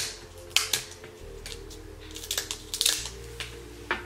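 King crab leg shells being snipped with kitchen shears and cracked apart by hand: a run of sharp, irregularly spaced snips and crunches, a few close together in places.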